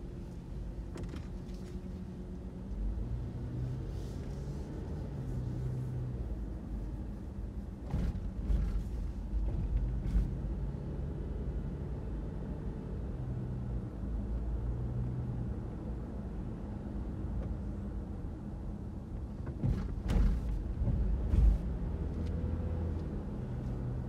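A car driving along, with a steady engine and road rumble whose low note shifts up and down a little. A few short thumps come about a third of the way in and again near the end.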